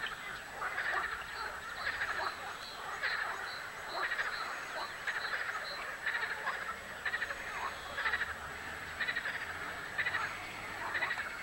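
Frogs croaking in a chorus, pulsed calls repeating about once a second.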